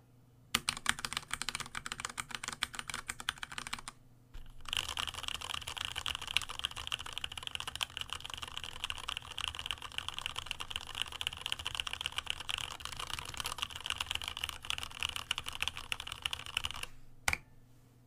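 Fast typing on a Varmilo Summit mechanical keyboard: a burst of rapid keystrokes for about three seconds, a short pause, then a long unbroken run of rapid keystrokes, ending with one lone keystroke near the end.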